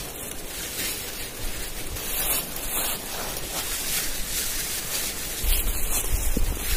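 Dry fallen leaves rustling and crackling as they are heaped by hand onto a shelter and trodden in the leaf litter. Wind buffets the microphone with a low rumble from about five and a half seconds in.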